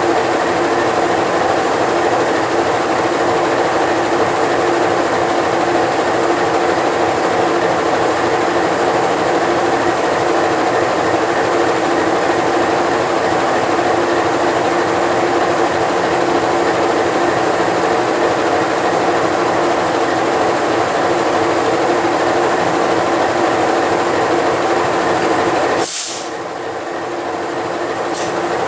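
CC 206 (GE C20EMP) diesel-electric locomotive's diesel engine idling steadily while parked, a constant low drone with a steady hum. Near the end there is a sharp click and a brief dip in loudness that recovers.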